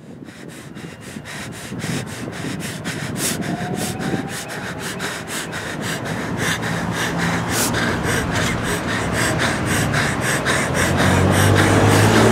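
A person panting hard, quick noisy breaths about three or four a second, fading in from silence and growing steadily louder over a low rumble.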